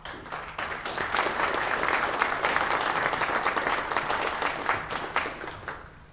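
Audience applauding: the clapping builds up over the first second, holds steady, and dies away near the end.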